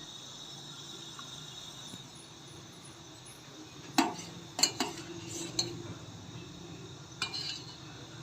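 A metal spoon clinking against the pot while masala chai with milk is stirred as it boils on the stove: several sharp clinks from about halfway through, one near the end, over a steady low noise of the stove and boiling tea.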